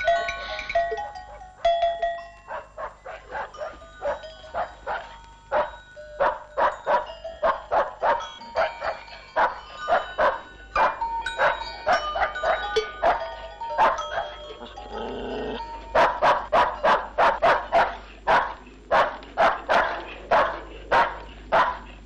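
Music for the first couple of seconds, then a dog barks over and over, a few quick barks a second. The barking is densest and loudest near the end.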